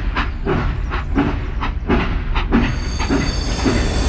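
Toy steam locomotive chugging: a steady rhythm of chuffs about three a second over a low steady hum.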